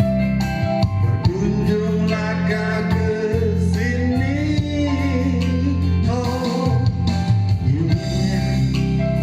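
Indonesian pop ballad: a voice singing a slow, wavering melody over an accompaniment that includes guitar.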